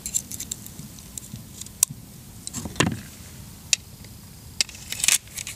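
A handful of light, scattered clicks and taps of small objects being handled, about six over several seconds.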